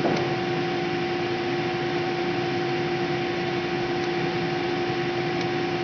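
Steady whir and hum of a powered-up CNC milling machine at idle, its cooling fans and drives running with the spindle stopped. Two steady tones, one about an octave above the other, sit over an even rushing noise that does not change.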